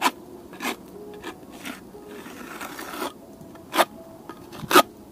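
Steel trowel scraping along the wet mortar joint at the foot of a masonry block, smoothing and trimming off the excess mortar. It comes as a series of short sharp scrapes about one a second, with one longer rasp in the middle.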